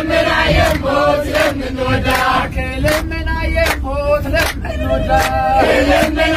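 Eritrean Orthodox Tewahdo praise hymn (wedase) chanted by a group of passengers, a man's voice prominent, with a steady beat of sharp strikes about two to three a second. The low rumble of the bus engine runs underneath.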